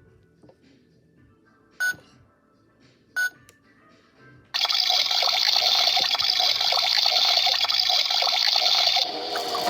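Toy washing machine beeping twice as its buttons are pressed, then starting up about four and a half seconds in, running loudly and steadily as it churns the water in its drum. Its sound changes just before the end.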